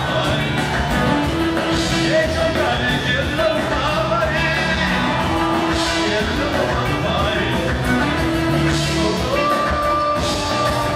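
Live Ethiopian pop music: a male singer singing into a microphone over an electric band of guitar, keyboards and drum kit, with cymbal crashes every few seconds.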